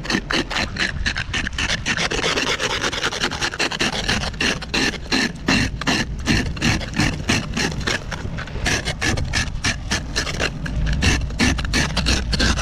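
Hand-held ice scraper rasping a layer of ice off a car windshield in quick, repeated short strokes.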